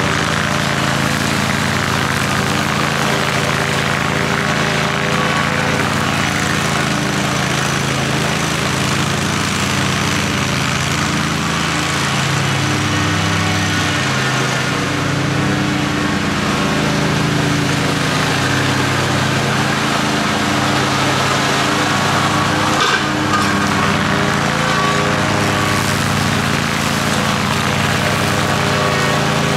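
A 60-inch zero-turn riding mower running steadily while cutting grass, its engine pitch shifting slightly as it works. There is a single brief knock about three quarters of the way through.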